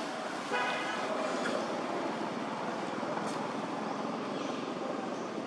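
Steady outdoor background noise, with a short high-pitched call about half a second in that lasts about a second.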